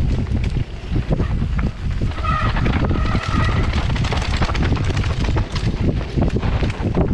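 Heavy wind buffeting on the microphone during fast movement, with a constant low rumble and scattered knocks and rattles. A brief high squeal comes in about two seconds in and lasts a little over a second.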